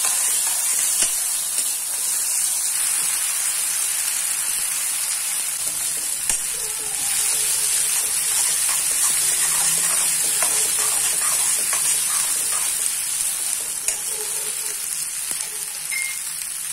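Chopped onions sizzling steadily as they fry in a steel kadhai, stirred with a steel spoon that clicks and scrapes against the pan now and then.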